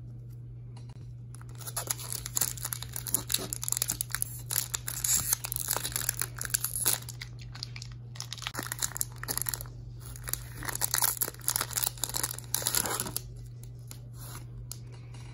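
Foil Pokémon TCG Brilliant Stars booster pack wrapper crinkling and tearing open. The crackling starts about two seconds in, comes in two long spells with a short pause around the middle, and dies down near the end.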